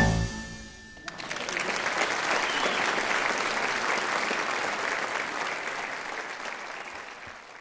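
A final piano chord rings out and dies away, then an audience applauds, the applause fading out near the end.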